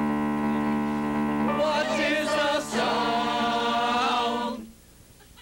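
A sustained chord held steady, with voices singing over it from about a second and a half in. The music cuts off about four and a half seconds in.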